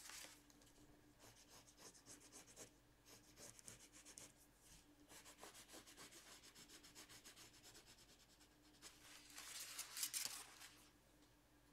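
Derwent watercolour pencil shading on paper: quick, quiet scratching strokes, louder for a stretch near the end.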